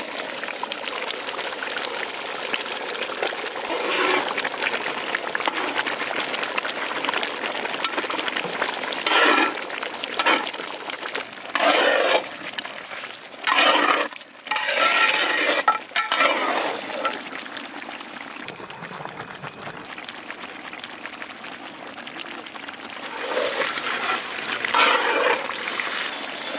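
Thick mutton curry boiling in a large metal pot while a long metal ladle stirs it. The ladle scrapes and clinks against the pot in several short strokes.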